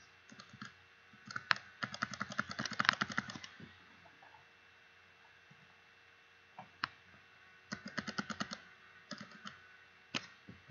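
Bursts of rapid clicking from a computer keyboard and mouse: a dense run of clicks about a second in lasting roughly two seconds, then shorter runs and a single click near the end.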